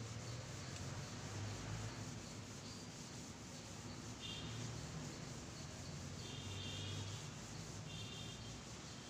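A board duster rubbing chalk off a blackboard in repeated wiping strokes.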